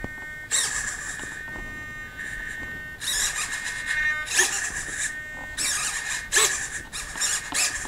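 KST X08H V5 micro wing servo driving the aileron back and forth under a servo tester, whining in a series of short bursts, about eight, each half a second to a second long. A faint steady high hum sits underneath. The sweeps are a check of the aileron's travel in both directions.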